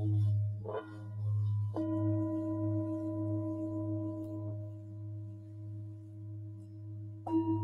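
Tibetan singing bowls struck with a mallet and left to ring: a light strike about a second in, then a stronger one whose clear tones sustain for several seconds over a pulsing low hum, and another strike near the end.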